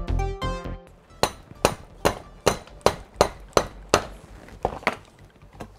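Electronic background music stops about a second in. Then a mallet strikes a Denso A/C compressor's clutch pulley about ten times, two or three blows a second, knocking the pulley free of the shaft.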